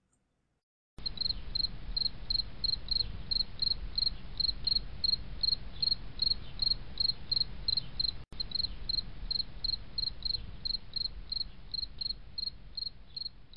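Insect chirping in a steady rhythm, about three short high chirps a second, over a low steady hiss; it begins about a second in, with a brief break around eight seconds.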